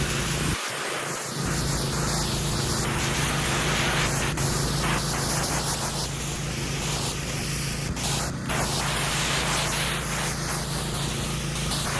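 Pressure washer running with a steady hiss of high-pressure water spraying onto a concrete driveway, over the constant hum of its engine. The low hum briefly drops out about half a second in.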